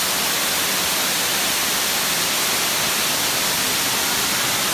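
Steam hissing from a steam train: a loud, steady hiss without a break.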